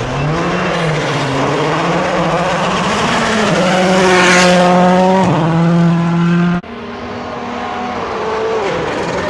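Volkswagen Polo R WRC rally car's turbocharged 1.6-litre four-cylinder engine at full throttle, revs rising and falling through the gears, then held on a steady high note as the car passes closest about four seconds in. The sound cuts off suddenly about two-thirds through, and the engine carries on fainter, revving up and down.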